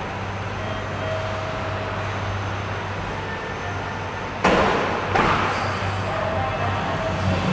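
A train at a station platform, with a steady low hum. About four and a half seconds in come two sudden loud bursts of noise well under a second apart, each fading quickly.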